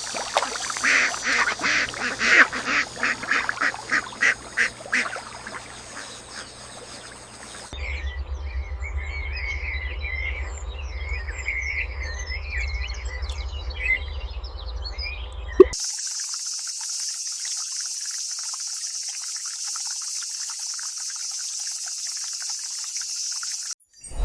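A nature soundscape in three parts. First a rapid run of rhythmic quacking calls, two or three a second, that fades out; then short chirping calls over a low rumble; then a steady hiss of running water that cuts off just before the end.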